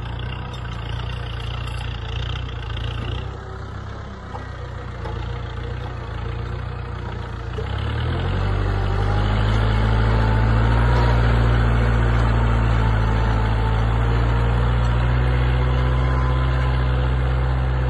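Kubota MU4501 tractor's four-cylinder diesel engine running steadily under load while pulling a two-bottom mouldboard plough through the soil. The engine gets clearly louder about eight seconds in as the tractor comes close.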